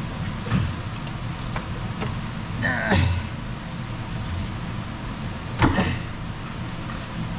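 Hand work on the engine: intermittent knocks and scrapes of tools and metal parts, loudest about three seconds and five and a half seconds in, over a steady low hum.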